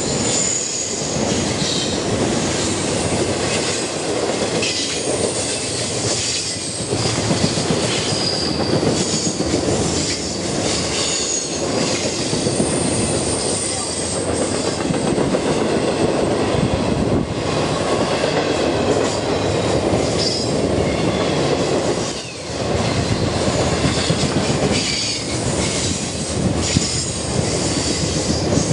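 A train rolling past with a continuous rumble and rattle of its cars, the steel wheels squealing on the rails in short, high-pitched streaks throughout.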